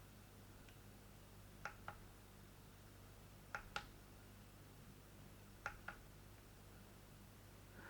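Near silence: room tone with a faint low hum and three faint double clicks, about two seconds apart.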